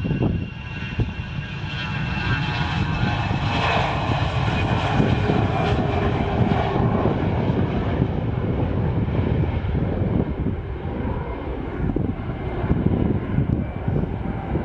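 Business jet's turbofan engines passing: a whine over a steady rumble that swells to a peak about five seconds in and then slowly fades.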